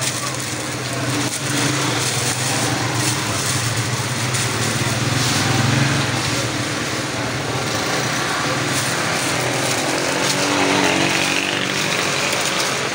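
Motor vehicle engine running steadily close by, over busy street noise.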